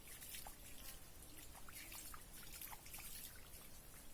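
Faint trickling and dripping water, with small irregular drips ticking throughout.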